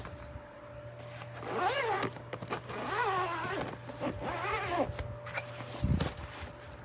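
Suitcase zipper pulled in three strokes, each a rasp that rises and falls in pitch as the pull speeds up and slows, followed by a low thump near the end.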